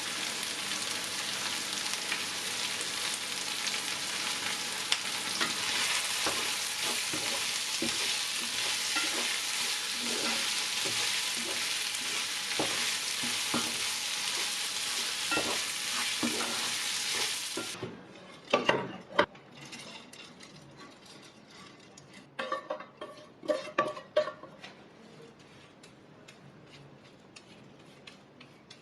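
Food sizzling as it fries in hot oil in a pan while it is stirred. The sizzle cuts off suddenly about two-thirds of the way through, and a few sharp knocks and clatters follow.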